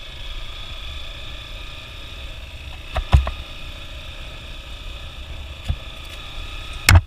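Hero XPulse 200's single-cylinder engine running at a steady note on a rough dirt trail, with sharp knocks twice about three seconds in and again near the end.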